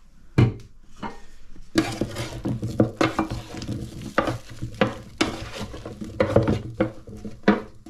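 A knock about half a second in, then from about two seconds in a wooden spoon stirring hot roasted butternut squash cubes in a Ninja air fryer drawer: continuous scraping and repeated knocks of the spoon against the drawer, over a sizzle from the freshly oiled vegetables.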